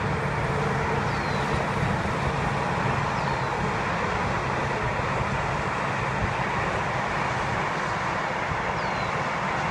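Steady rush of highway traffic, cars and semis passing on the road below, with a few faint short high chirps over it.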